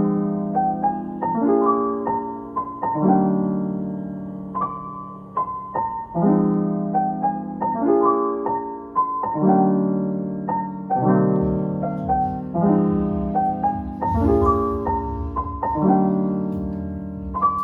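Background piano music, calm chords struck about every one and a half seconds.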